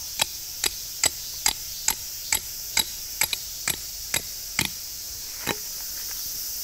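Tent pegs being hammered into the ground while a tarp is pitched: about a dozen sharp strikes, roughly two a second, then one more after a short pause.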